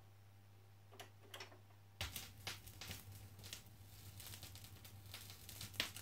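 Sanyo TP-388 auto-return turntable cycling: a few faint mechanical clicks about a second in, then the stylus setting down on a 45 rpm single about two seconds in, followed by soft crackle and pops from the record's run-in groove over a low hum.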